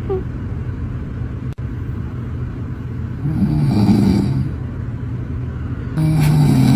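A man snoring loudly, twice, about three seconds apart, over a steady low rumble.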